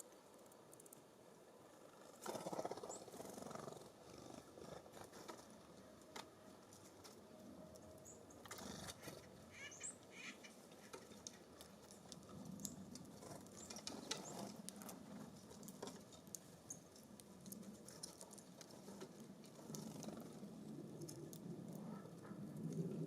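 Faint small-bird activity at a seed feeder: scattered light taps and scratches of birds pecking and shuffling on the feeder, a few short high chirps, and a couple of gusts of wind.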